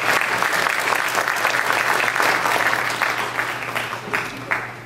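Audience applauding, dying away near the end with a few last scattered claps.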